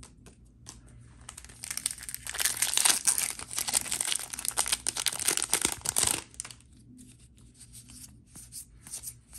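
A Magic: The Gathering booster pack's foil wrapper being torn open, with a loud, crackly tearing and crinkling from about two seconds in to about six seconds in. Then comes quieter light rustling and clicking as the cards are handled.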